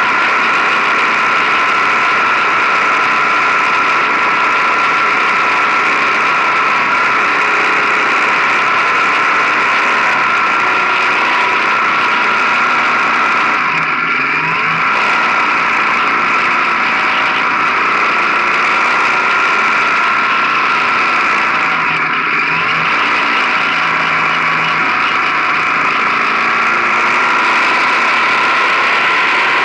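Motorcycle riding at road speed, its engine running under steady wind and road noise on a camera mounted low on the bike. The sound dips briefly twice, about halfway through and again about three quarters through.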